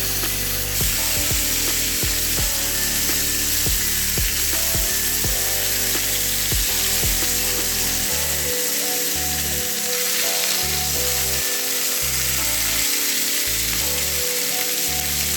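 Oxtail pieces sizzling steadily as they brown in olive oil in a pan.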